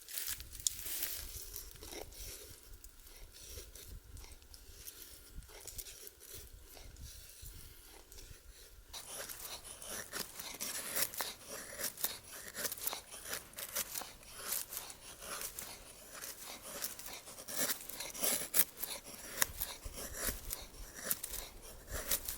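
Irregular crisp crunching and crackling, sparse at first and much busier from about nine seconds in.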